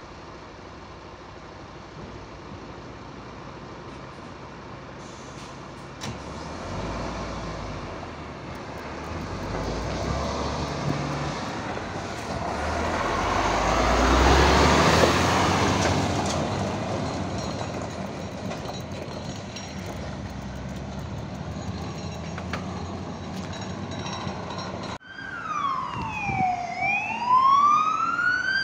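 Diesel engine of a heavy MAN fire engine running as it pulls away and drives past close by, loudest about halfway through and then fading. Near the end, after a cut, an emergency vehicle's siren wails, rising and falling.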